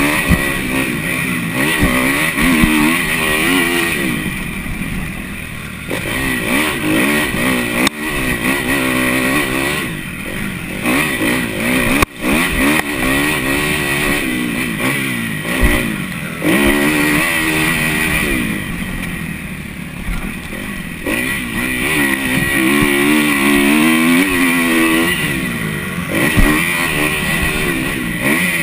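Kawasaki KX250F's 250 cc four-stroke single-cylinder engine ridden hard on a motocross track, revving up and falling off again and again with the throttle. A single sharp knock about twelve seconds in.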